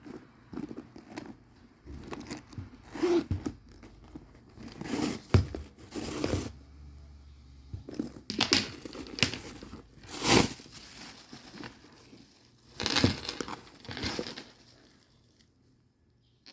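Packaging being handled and opened by hand: crinkling and tearing in irregular bursts, dying away near the end.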